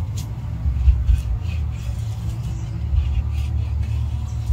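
Steady low rumble, with faint short sounds above it.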